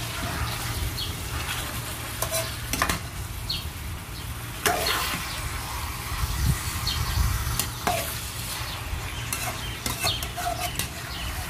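Raw chicken pieces sizzling in hot oil in a metal pan while being stirred with a metal spoon, the spoon scraping and knocking sharply against the pan several times.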